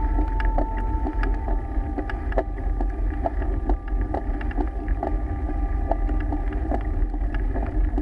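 Wind rumbling on a bike-mounted action camera's microphone while riding a mountain bike, with scattered clicks and rattles from the bike over the rough road surface.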